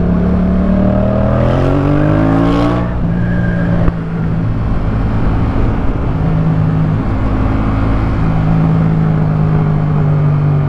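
Yamaha MT-07's 689 cc parallel-twin engine through a Jeskap K4 full exhaust, accelerating with rising pitch for about three seconds, then levelling off and running steadily. A single sharp click near four seconds.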